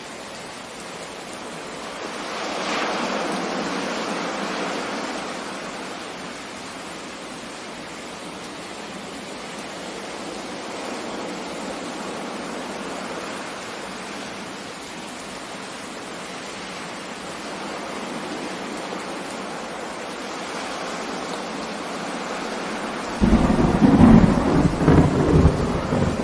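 Steady rain with a swell of louder rushing a few seconds in, then a loud thunderclap bursts in suddenly near the end and goes on crackling and rumbling.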